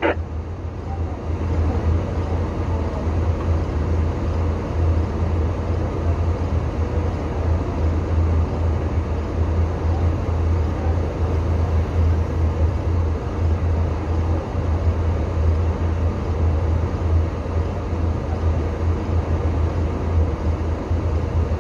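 A vehicle engine idling steadily, a constant low rumble with no change in speed.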